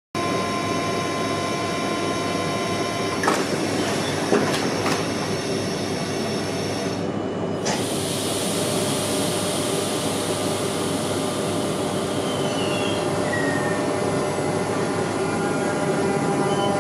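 Double-deck RER C electric multiple unit (Z20500 and Z20900 in multiple) standing at the platform, its electrical equipment giving a steady hum with several whining tones. A few sharp knocks between about three and five seconds in as the doors shut, then a hiss of air from about eight seconds in, and the sound grows louder near the end as the train readies to depart.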